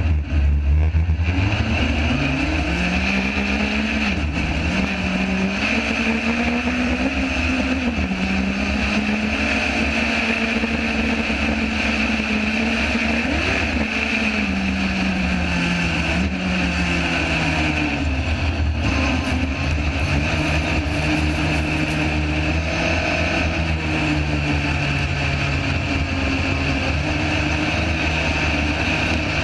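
Sand rail engine running under load while driving across sand dunes, its pitch rising and falling with the throttle, over a steady rumble of wind on the microphone.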